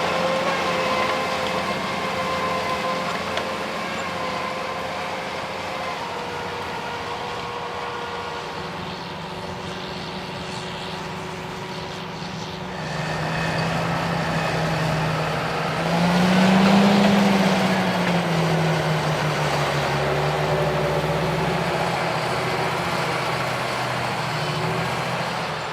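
Large John Deere tractor's diesel engine pulling hard under field load. The sound changes about halfway through, and the engine note then rises and falls, loudest a few seconds later.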